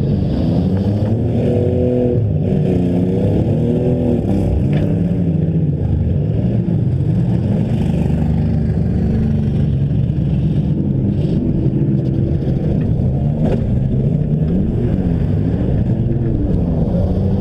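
Several demolition derby engines running at once, revving up and down in overlapping pitches, with a couple of sharp knocks.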